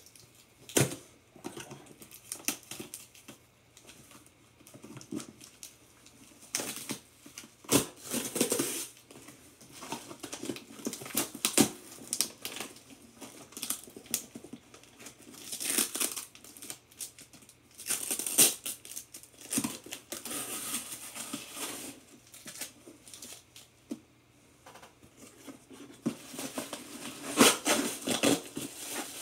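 A mailer package being opened by hand: paper and plastic packaging and bubble wrap crinkling, rustling and tearing in irregular bursts, with soft knocks and short quiet pauses between.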